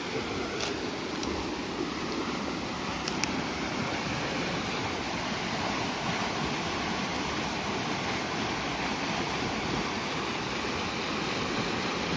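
Muddy flash-flood water rushing down a small creek after heavy rain: a steady, even rushing. A couple of faint clicks about half a second and three seconds in.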